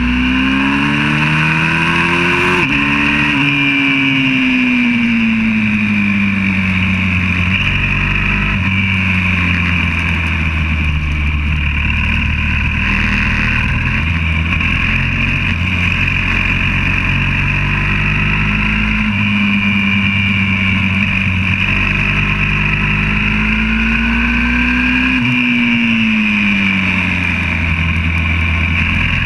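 YCF 125cc four-stroke single-cylinder pit bike engine heard onboard at racing revs while lapping a track. The engine note climbs about two seconds in, falls away slowly over the next few seconds, holds, then climbs again in the last third before dropping off.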